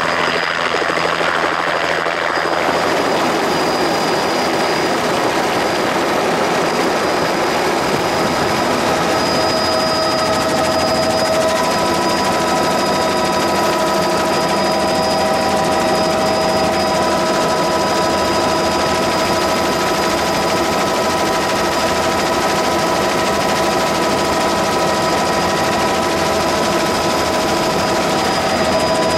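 Light helicopter's rotor and engine running steadily: a rapid blade chop with a steady whine on top. A few high steady tones come in more strongly about ten seconds in.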